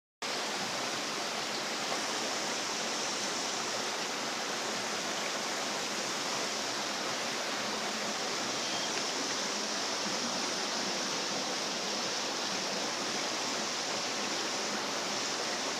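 A steady, even rushing hiss that does not change, like running water or a constant noise on the recording.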